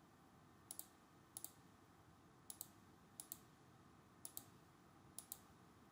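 Computer mouse clicking: six quick paired ticks, a button press and release, spaced roughly a second apart over faint room hiss.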